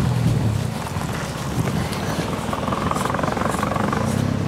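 Street traffic: cars passing on the road, with a low engine hum at the start and another rising near the end, and tyre noise between.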